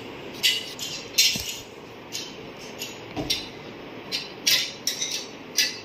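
Metal movable TV wall-mount bracket being handled and fitted onto the back of a TV: irregular sharp metallic clicks and clinks, about nine of them.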